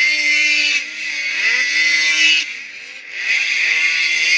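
Several modified racing snowmobiles' two-stroke engines revving hard, their pitch rising and falling as the sleds race through a turn. There is a short lull about two and a half seconds in, then the next sleds come through at full throttle.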